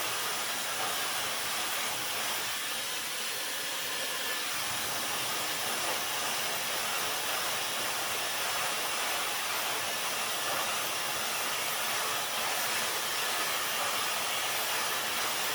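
Dyson hair dryer running steadily on its second power setting with the styling concentrator nozzle fitted: an even rush of blown air.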